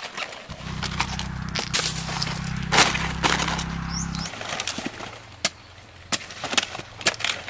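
Cabbage heads being cut from their stalks with a large knife: a run of sharp cracks and snaps as the blade goes through the stems and crisp leaves. A low steady hum runs under the first half and stops about four seconds in.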